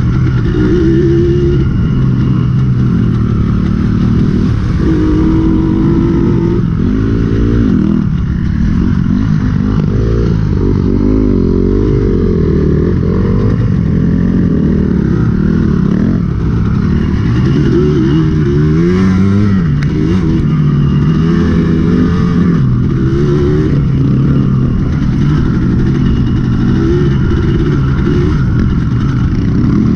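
Dirt bike engine running under load, revving up and down repeatedly so its pitch keeps rising and falling as the bike is ridden.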